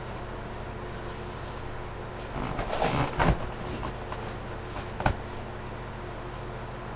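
A person shifting their weight on a large latex balloon: scattered rubbing and creaking sounds, loudest around three seconds in, with a sharp knock about five seconds in, over a steady low electrical hum.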